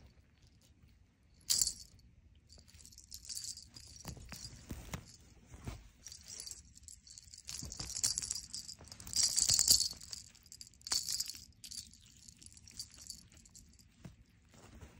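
Jingling in irregular bursts from a cat's feather wand toy as a tabby cat bats and bites at it, loudest around the middle.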